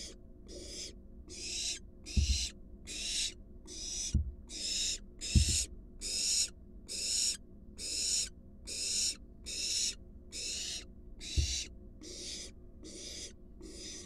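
Barn owl's rasping hisses repeated about three every two seconds, the food-begging 'snore' of a barn owl fledgling. Four dull low thumps, from movement against the wooden nest box, come about 2, 4, 5.5 and 11.5 seconds in.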